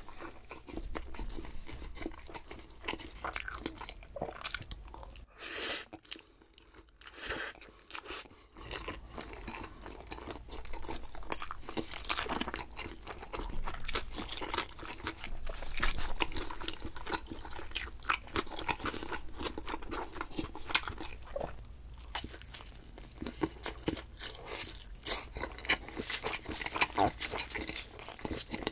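Close-miked eating: irregular bites and chewing with crunchy, crackling sounds, with two short hissy sounds about five and a half and seven seconds in.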